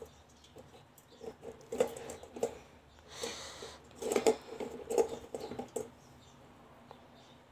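Raw eggs clicking and knocking against one another and the stainless steel pot as a hand arranges them, in light, irregular taps, with a brief rustle about three seconds in.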